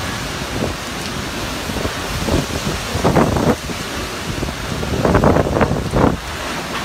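Tropical cyclone wind and heavy rain: a steady rushing noise, with stronger gusts about three seconds in and again around five to six seconds.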